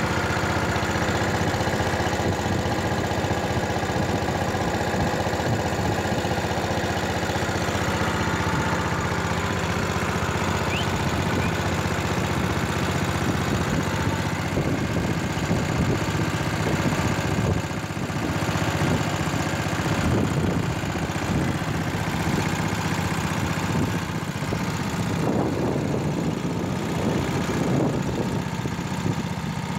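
An engine running steadily with an even hum that holds its pitch, with some rougher swells of noise in the second half.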